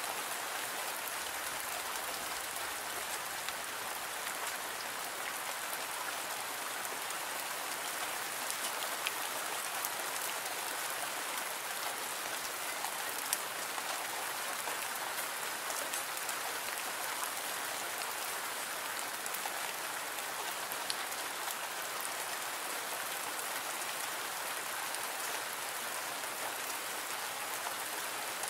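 Steady rain: an even hiss of falling drops with a few sharper drip clicks.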